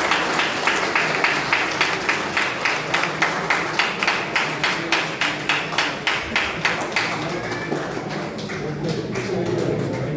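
Audience clapping together in a steady rhythm, about four claps a second, dying away about seven seconds in as voices take over.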